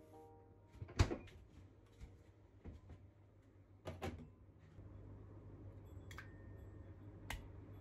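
Kitchen handling sounds: a sharp knock about a second in, then an egg cracked against the counter about four seconds in, followed by two light clicks as the shell is pulled apart.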